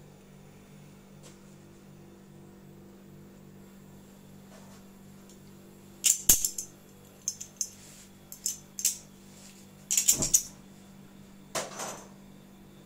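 Sharp metallic clicks and rattles as a gas brazing torch is lit, in several clusters, the loudest with a thump about six and ten seconds in. A faint steady hum lies under the first half.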